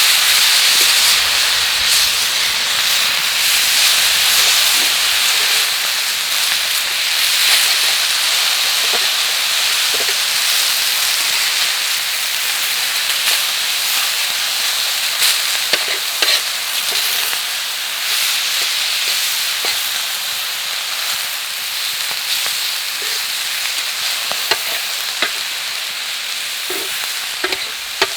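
Food sizzling steadily on a hot iron griddle over a campfire, with scattered short clicks and taps; the sizzle slowly dies down.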